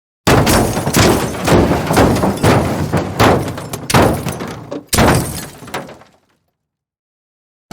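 Car crash sound effect: a sudden crash starting about a quarter second in, followed by a string of further impacts and breaking glass that dies away over about six seconds, with a brief cut and fresh impact near the five-second mark. After a couple of seconds of silence another crash starts right at the end.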